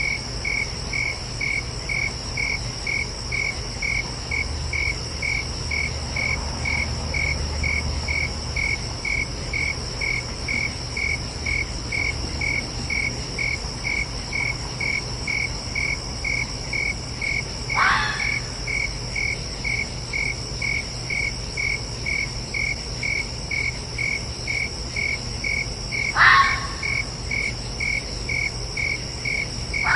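Crickets chirping in a steady, even rhythm of about two chirps a second, over a continuous high insect trill. Twice, about eighteen and twenty-six seconds in, a short call slides down in pitch.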